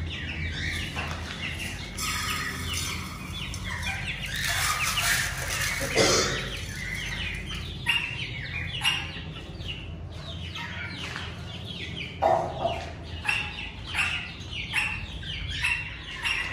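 Domestic chickens clucking and chicks peeping: many short overlapping calls, one louder, lower call about six seconds in, over a steady low hum.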